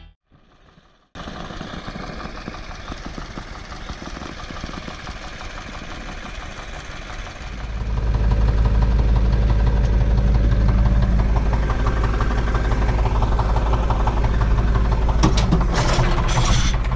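Steyr 964 Turbo tractor's diesel engine running, heard from inside the cab. It comes in after about a second of silence and grows clearly louder about seven seconds in, with a few clicks and rattles near the end.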